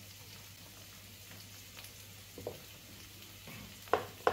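Food frying in olive oil in a wok, a faint steady sizzle. Near the end a knife knocks twice on a cutting board as chopping begins.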